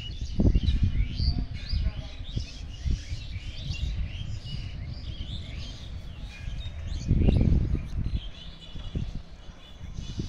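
Many small birds chirping and twittering in short, overlapping high calls. There are bursts of low rumble on the microphone, loudest about half a second in and again around seven seconds.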